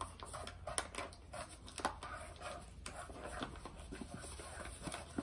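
A spoon stirring thick batter in a large metal basin, with irregular scrapes and light clicks against the metal, as wheat flour is poured in from a paper bag.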